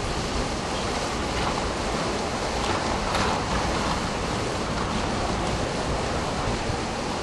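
Tropical-storm wind: a steady rushing noise with a deep rumble of wind buffeting the microphone, swelling slightly about three seconds in.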